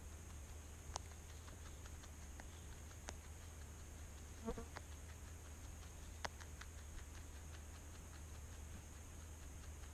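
A wild rabbit chewing and tearing grass right at the microphone: a stream of small, faint crunching clicks, with a few sharper clicks and a brief louder sound about halfway through.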